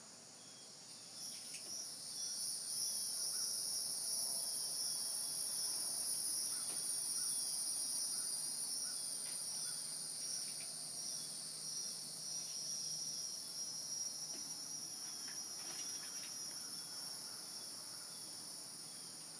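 Insects droning in a steady, high-pitched chorus. It swells in over the first couple of seconds, holds, then slowly fades toward the end.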